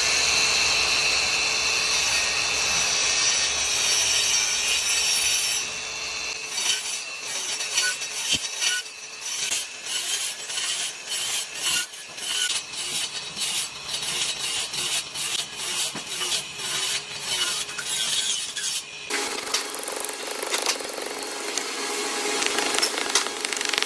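Wood being cut and shaped with cutting tools: a steady high whine for the first six seconds or so, then a long run of quick, irregular scraping and sawing strokes, changing to a different steady cutting sound a few seconds before the end.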